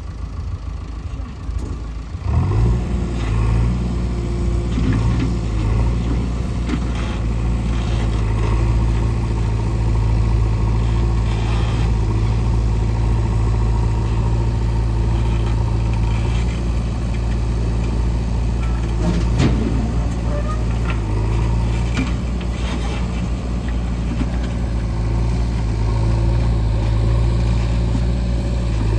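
A diesel engine starts about two seconds in, then runs steadily at idle, with a few short knocks over the top.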